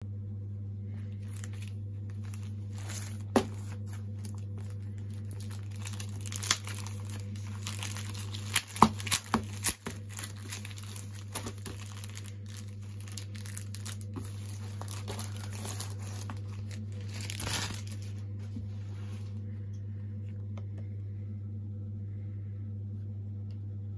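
Clear plastic wrapping of a sticker starter pack being torn open and crinkled by hand, with a cluster of sharp snaps in the middle. The crinkling dies away a few seconds before the end, leaving a steady low hum.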